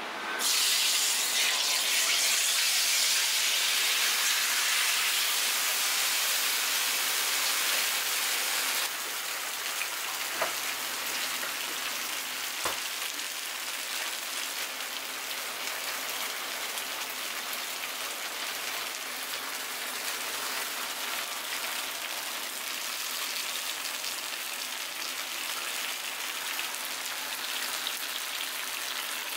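Takoyaki batter sizzling in a hot, oiled iron takoyaki pan. A loud hiss starts as the batter is poured in and drops to a steadier frying sizzle about a third of the way through. Two brief clicks come a couple of seconds apart after that.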